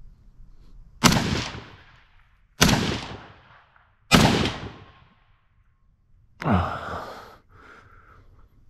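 Three shots from a .308 M1 Garand rifle, fired semi-automatically about a second and a half apart, each ringing out briefly. About six and a half seconds in, a softer breathy sigh with a falling pitch.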